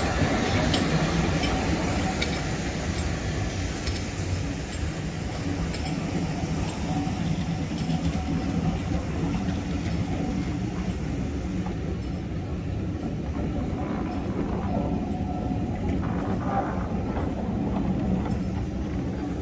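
A steam-hauled train of passenger coaches rolling past on the track: a steady rumble of wheels on rail, with clicks as the wheels pass over rail joints in the first few seconds.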